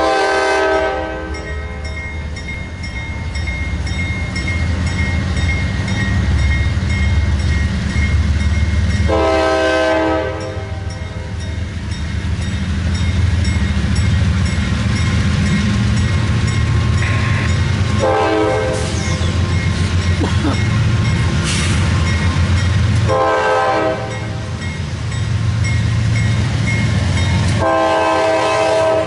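CSX freight locomotive's air horn sounding five blasts of about a second each, the warning for a grade crossing. Between blasts the diesel locomotive rumbles low and steady, and the crossing-signal bell keeps ringing.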